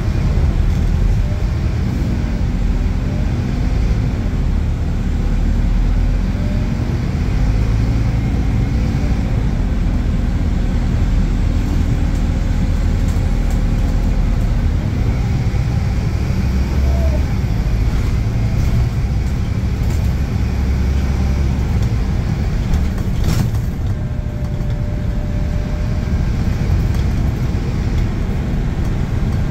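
Scania K280UB bus's diesel engine and ZF automatic gearbox pulling along the road, loud and steady, the engine note rising and falling through gear changes. One sharp knock about 23 seconds in.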